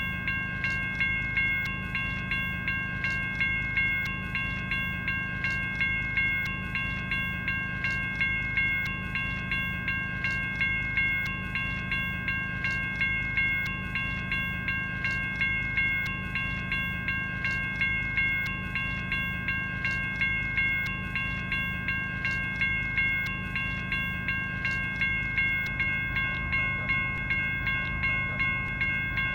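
General Signals Type 1 electronic railroad-crossing bell (e-bell) ringing continuously. Its electronic ding repeats at an even pace, with the bell tone carrying on between strikes over a steady low hum.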